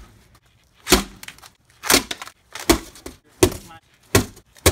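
Pieces of a broken glass picture, its cardboard backing and print panels, slammed down one after another onto a heap of wooden frame and broken glass on concrete: about six sharp cracking smacks, roughly one every three-quarters of a second.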